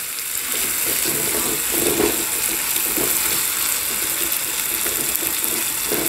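Chopped onion, ginger-garlic and tomato sizzling in oil in a nonstick frying pan while a wooden spatula stirs it, with short irregular scrapes of the spatula against the pan over a steady sizzle.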